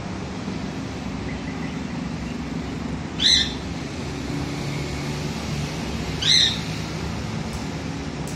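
Alexandrine parakeet giving two short, high-pitched calls about three seconds apart, over a steady low hum.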